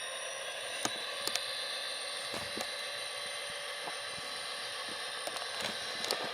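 Tsunami sound decoder in an HO-scale Atlas GP40 model playing the sound of an EMD turbocharged diesel engine through the model's small speaker: a steady engine drone with a turbo whine and no deep bass. A few sharp clicks come at irregular moments.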